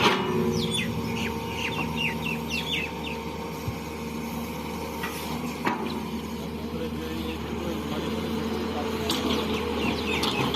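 Excavator's diesel engine running steadily, with quick high chirps in the first few seconds and again near the end, and a couple of sharp knocks.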